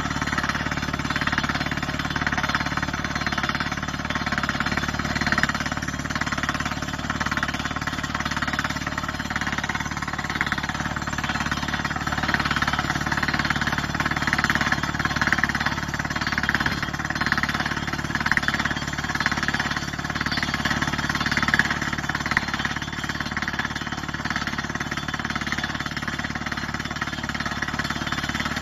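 Hengwang DTH drilling rig drilling into rock: the down-the-hole hammer's steady rapid hammering, with compressed air blowing the rock dust out of the hole, over a steady low drone.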